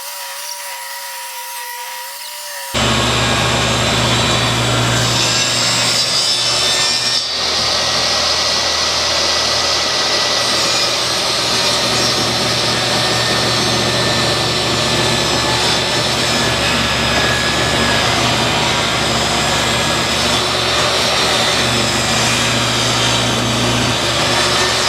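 DeWalt 10-inch portable table saw running and ripping a 2x4 lengthwise, the motor and blade cutting steadily through the wood. The first few seconds are quieter with a faint wavering tone, then the sound jumps suddenly loud about three seconds in and stays loud and steady.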